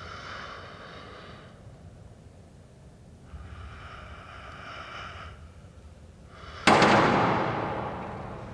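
Sci-fi sound effects: a hum of several steady tones pulses twice, each pulse about two seconds long, then a sudden loud blast hits and dies away over about two seconds.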